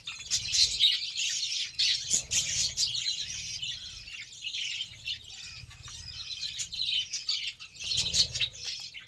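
A flock of budgerigars chattering, with many short high chirps overlapping without a break.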